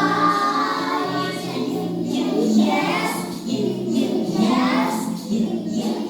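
A group of young children singing a phonics song together, with music.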